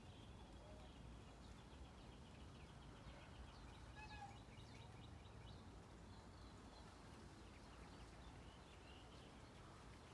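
Faint birdsong: small birds chirping, with a rapid trill of repeated high notes and a few short whistled notes, over a low steady background rumble.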